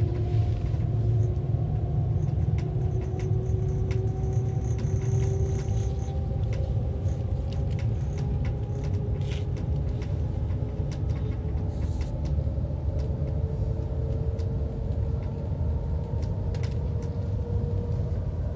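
Steady low rumble of a high-speed train running at speed, heard from inside, with faint whining tones that slowly drift in pitch and scattered light clicks.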